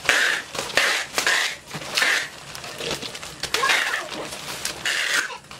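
Plastic wrapping rustling and crinkling in irregular bursts as a plastic-wrapped telescopic hot stick is handled.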